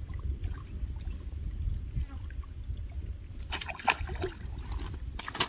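Wind buffeting the microphone, then about three and a half seconds in a hooked fish starts splashing and thrashing at the surface as it is pulled in on the line. The splashing comes in irregular bursts and surges again near the end.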